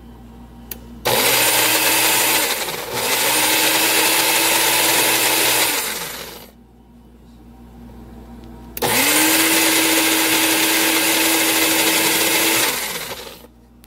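Electric countertop blender running in two bursts, mixing a barbecue sauce: the motor spins up about a second in, dips briefly, runs until about six seconds and winds down, then starts again near nine seconds and runs for about four seconds before winding down.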